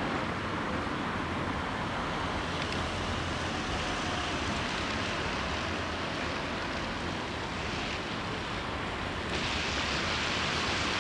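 Steady street traffic noise with wind hiss. The hiss grows louder about nine seconds in.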